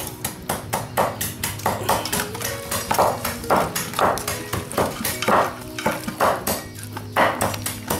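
Metal utensils clinking and scraping against metal cookware in quick, irregular strokes, several a second, as pieces of duck are stirred and mixed.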